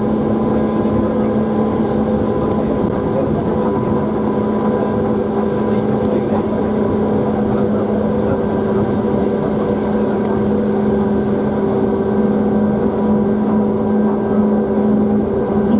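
Tateyama Tunnel Trolleybus (8000-type electric trolleybus) running at speed, heard from inside the passenger cabin: a steady loud drone of motor and tyres with a low hum and a few higher held tones.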